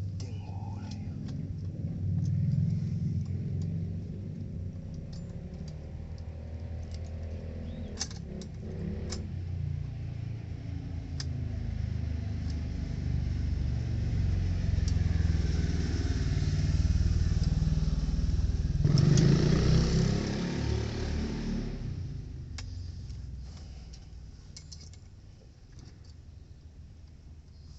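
A low engine rumble that builds over some fifteen seconds, peaks with a loud rushing noise about nineteen to twenty-two seconds in, then fades away, with scattered light clicks throughout.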